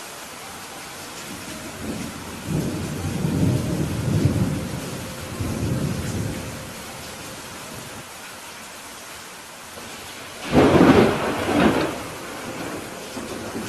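Steady rain falling, with thunder rolling low from about two seconds in to about six seconds, then a sudden louder, sharper thunderclap about ten and a half seconds in that fades over a second or so.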